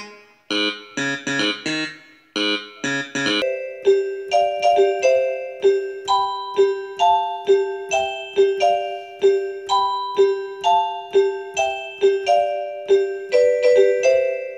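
Background music: a few seconds of short, choppy plucked notes, then from about three and a half seconds in a light electric-piano tune over one note repeated about twice a second.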